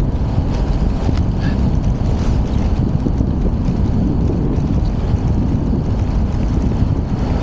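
Steady wind rushing and buffeting over the microphone of a camera carried on a moving tricycle.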